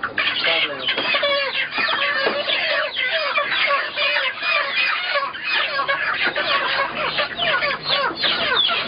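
A crowd of broiler chickens calling all at once, a dense, unbroken mass of overlapping short squawks and clucks, as the birds are crammed into wire transport cages.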